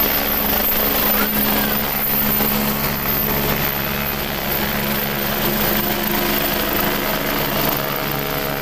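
AgustaWestland AW109 twin-engine helicopter lifting off and climbing away: a steady rotor and turbine drone that slowly fades as it gains height.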